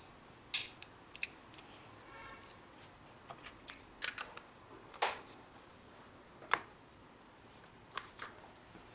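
Scattered light clicks and taps, about a dozen spread unevenly, with a faint short tone about two seconds in.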